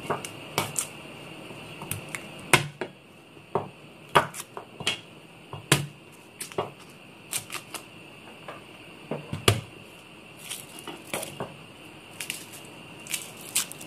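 Cleaver knocking on a wooden cutting board as garlic cloves are cut and crushed: irregular sharp knocks, one every half second to a second or so.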